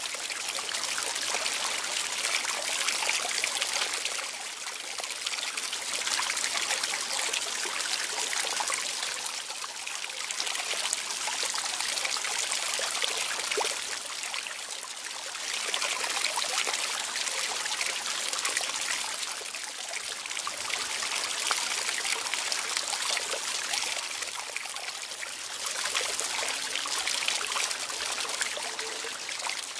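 Steady trickle of running water that swells and eases every few seconds.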